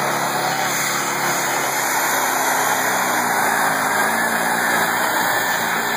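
Modified stock pulling truck's engine running hard at full throttle, a steady loud engine sound, as the truck drags the weight-transfer sled down the track.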